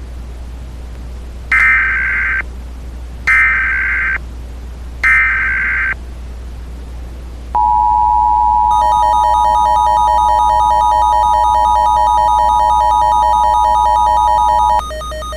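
Emergency Alert System SAME header: three short bursts of screeching digital data, each about a second long and nearly two seconds apart, followed by the EAS two-tone attention signal, a steady 853/960 Hz dual tone held for about seven seconds, with a fainter pulsing tone joining in partway through. A constant hiss and low hum sit underneath, as on an over-the-air radio signal.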